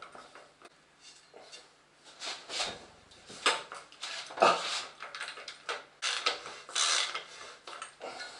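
Irregular metal clinks, knocks and scraping as a bottom bracket tool and wrench work at loosening the left-hand cup of an old square-taper bottom bracket. Faint for the first two seconds, then a run of sharper knocks and scrapes.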